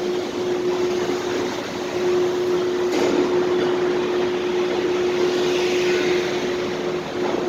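Steady parking-garage ambience: a constant rushing noise with a steady hum, and a single sharp click about three seconds in.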